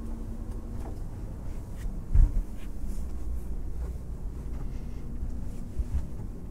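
Low steady rumble with a few scattered thumps and faint clicks, the loudest thump about two seconds in: footsteps and camera-handling noise while walking down a yacht's interior stairs.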